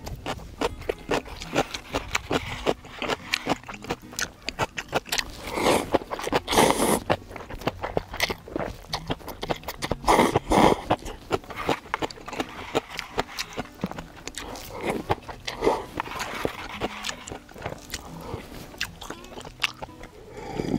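Close-up eating sounds of instant cup noodles being slurped and chewed: many short wet smacks and clicks, with louder, longer stretches about six and ten seconds in.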